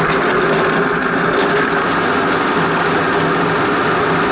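A small electric motor running steadily and loudly, starting and cutting off abruptly.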